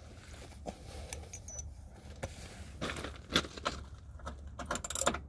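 Light metallic clicks and clinks of small bolts and hand tools being handled while removing a fog light, with a quick run of clicks just before the end.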